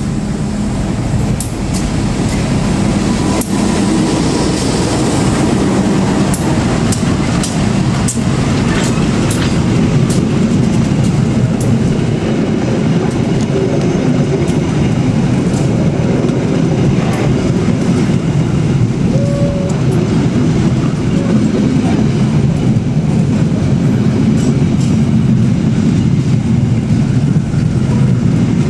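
A KAI diesel-electric locomotive passing close, followed by a long rake of stainless-steel passenger coaches rolling past. The wheels rumble steadily on the rails, with sharp clicks over the rail joints, most of them in the first third.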